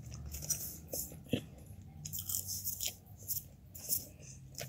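A person chewing fried shrimp close to the microphone: irregular short crunches and mouth clicks.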